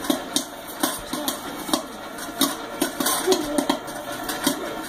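Kettle-style popcorn machine popping a batch: kernels popping in quick, irregular clicks.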